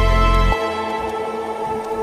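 Background music: slow, sustained new-age style tones; a deep bass layer drops out about half a second in while the higher held notes continue.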